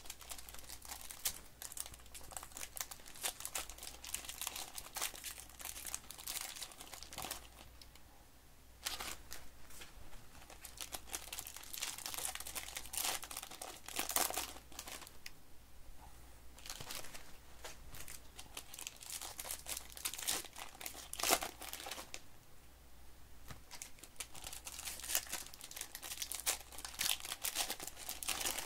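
Foil trading-card pack wrappers crinkling and tearing as hands rip open packs of football cards, in bursts with short pauses.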